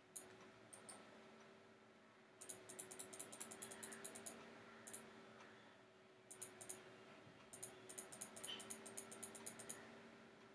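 Faint clicking from a computer mouse and keyboard: a few single clicks, then two runs of rapid clicks of about two seconds each, over a faint steady hum.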